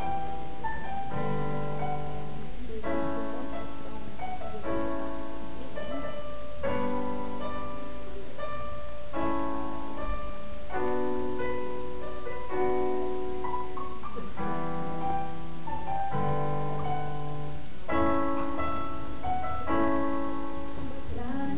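Piano playing slow, held chords, a new chord about every two seconds.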